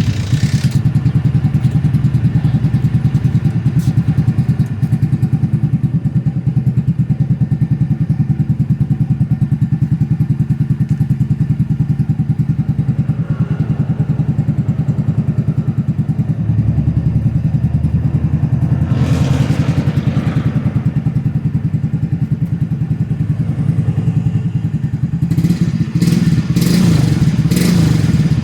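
Kawasaki Fury 125 two-stroke single-cylinder motorcycle running through an aftermarket Raider Gen 1 exhaust canister with a 51 mm big elbow. It idles steadily with a pulsing exhaust note, is blipped once about two-thirds of the way in, and is revved several times near the end.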